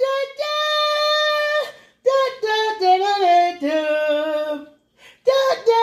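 A woman singing solo: one long held note, then phrases that step up and down in pitch, with a new phrase starting near the end.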